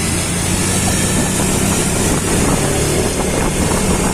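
A vehicle engine running steadily at an even speed, with a constant hiss over it.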